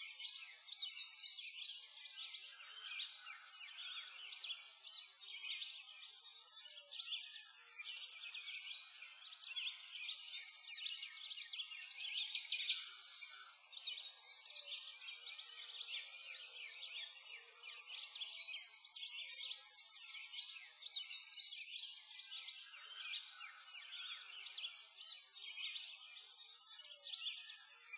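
Many songbirds chirping and singing at once, a dense, continuous chorus of short high chirps.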